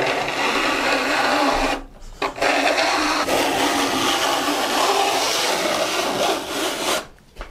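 A flat steel file run lengthwise along the tooth tips of a 4 TPI Disston D8 ripsaw, a steady metal-on-metal rasp in two long strokes, a short one and then a longer one after a brief pause. This is jointing the saw: filing every tooth down to the same height, shown by a shiny flat on each tip.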